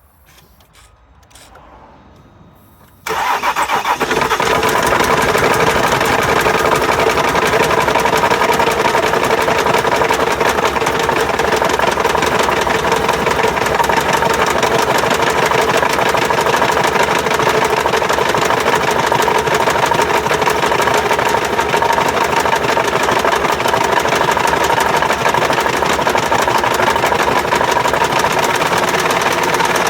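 A 2012 Jeep Grand Cherokee's 3.0-litre V6 diesel (WM23D) starts about three seconds in after a few faint clicks, then runs steadily at idle with a fast, even clatter. The engine has crankshaft damage, and a knocking noise is a typical sign of it.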